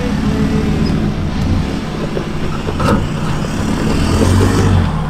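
Mazda BT-50 ute's engine working at low speed as it crawls through a rutted off-road gully, with a sharp knock about three seconds in and the engine note swelling near the end.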